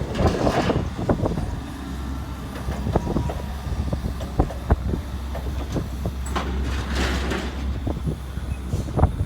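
Hydraulic excavator's diesel engine running steadily under scattered knocks, clatters and crunching of demolition debris being broken and moved, with heavier crunching about half a second in and again around seven seconds in.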